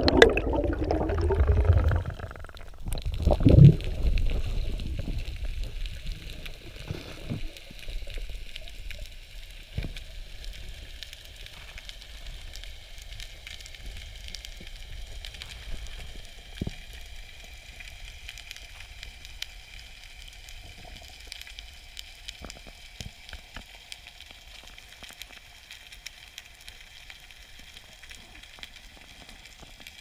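Heard under water: a loud rush of bubbles as the diver goes under, with a second short burst of bubbles a few seconds in, then a quieter steady hiss of the sea with scattered clicks and crackle.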